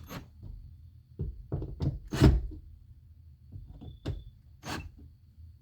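A series of separate knocks and clunks from work on a car door during a speaker install, the loudest a little over two seconds in.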